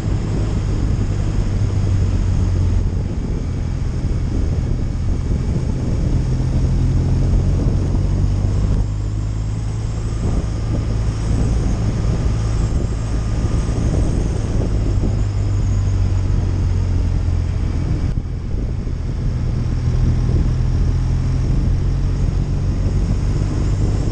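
Touring motorcycle's engine running steadily at road speed, heard from the bike with wind noise over the microphone. The engine note shifts slightly a couple of times, around a third and three quarters of the way through.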